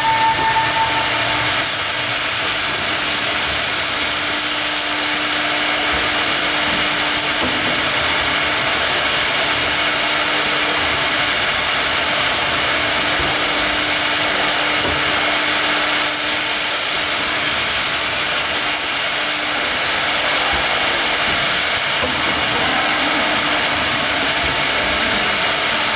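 CNC wood router with a linear automatic tool changer running: a loud, steady machine noise with a faint low hum. A few brief clicks sound through it.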